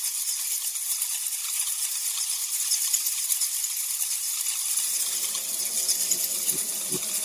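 Steady high-pitched rattling, crackling hiss, a sound effect, with faint low rumbling and a few soft low thuds coming in about two-thirds of the way through.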